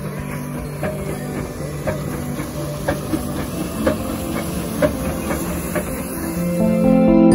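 Background music with a soft beat about once a second, over a steady hiss. The music swells near the end.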